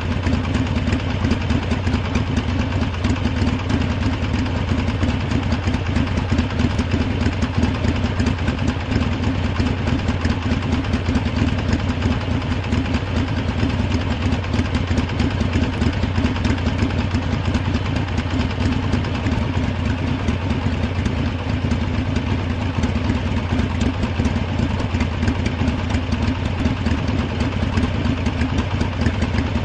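Harley-Davidson motorcycle's V-twin engine idling steadily.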